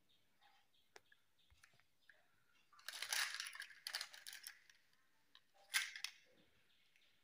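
Faint handling noise of clear plastic LED star lights turned in the hand: scattered single clicks, a spell of rustling and clicking about three seconds in, and a shorter one near six seconds.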